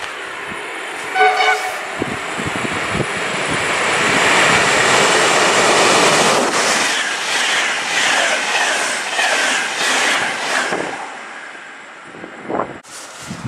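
A passenger train hauled by an electric locomotive sounds a short horn blast about a second in, then runs through the station at speed. A loud rush of wheels and air builds as it passes, then comes a rhythmic clatter of wheels over rail joints as the carriages go by, fading away near the end.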